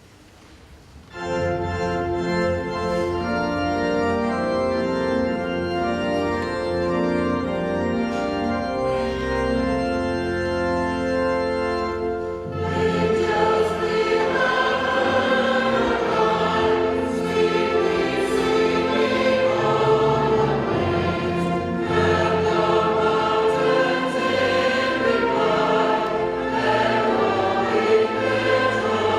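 An organ starts about a second in, playing long held chords. About twelve seconds in a choir joins, singing with the organ.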